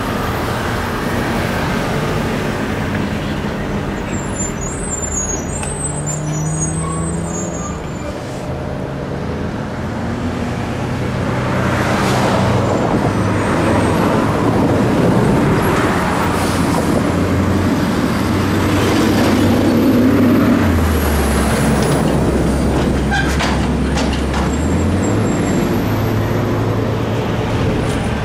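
Road traffic with heavy trucks passing, over a low, steady diesel engine rumble. The engine note drops in pitch for a few seconds past the middle, and the traffic is loudest past the middle.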